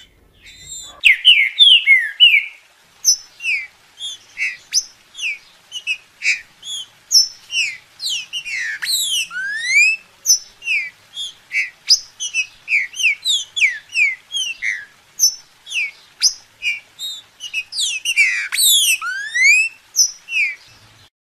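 Green-winged saltator (trinca-ferro) singing: a long run of short, clear whistled notes, many sliding up or down in pitch, about two a second.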